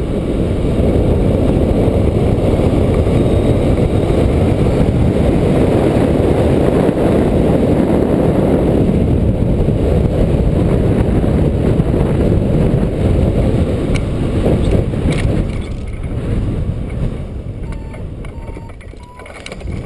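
Wind rushing over the camera microphone of a hang glider in flight, a loud steady low rumble. It eases off in the last few seconds as the glider slows and lands, with a few sharp clicks and knocks near touchdown.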